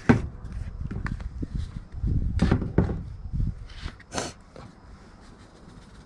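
A few knocks and clatters of cooking items being handled and set down, with a sharp click about four seconds in.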